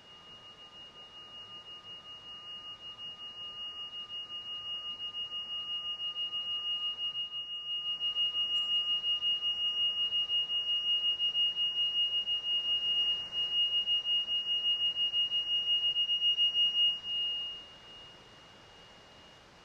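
Singing bowl sounding one high, pure ringing tone with a fainter lower tone beneath it. It swells gradually over several seconds with a fast, even wobble in loudness, holds, then is cut off sharply near the end.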